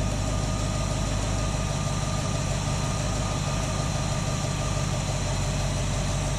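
Ford V8 idling steadily at about 700 rpm on a freshly rebuilt Holley 2300 two-barrel carburetor, while its idle air mixture screw is being turned to tune for peak vacuum.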